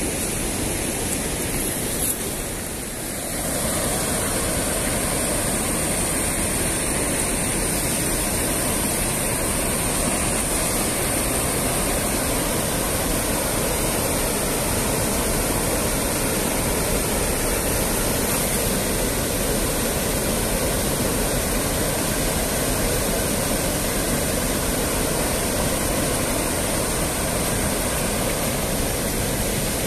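Water pouring over a concrete river weir below a sluice gate: a steady rushing noise with a short dip about three seconds in.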